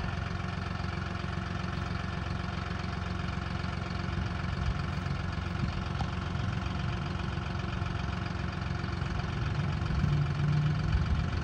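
John Deere 5045E tractor's three-cylinder diesel engine running steadily at low speed, getting a little louder near the end.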